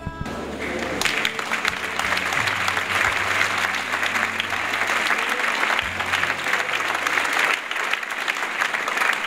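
Audience applauding, dense clapping that starts about a second in and keeps up, with soft background music underneath.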